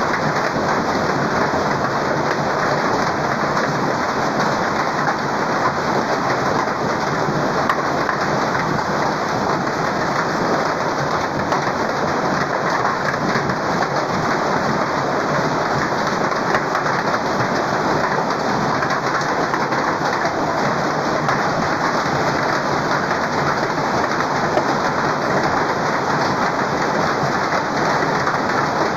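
Hailstorm: hailstones and heavy rain pelting the ground in a steady, dense hiss.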